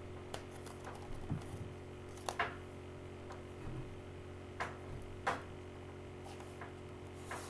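Light, scattered clicks and taps of a CD box set's cardboard packaging and plastic disc cases being handled, about ten in all and spaced irregularly, over a faint steady low hum.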